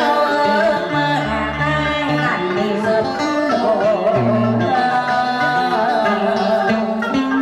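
Live đờn ca tài tử music: plucked strings playing a melody with sliding, bending notes, with a few short held low notes underneath.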